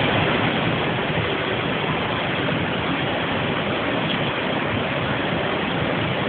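Floodwater rushing past in a steady, unbroken wash of noise.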